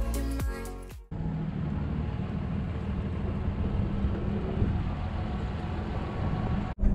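Background music for about the first second, then it cuts to a pickup truck driving, heard from its bed: a steady engine drone with road and wind noise.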